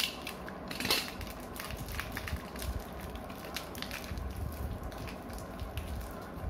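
Small plastic packaging crinkling and clicking as it is handled and opened by hand to free a Beyblade part, with irregular small crackles and a sharper click at the start and again about a second in.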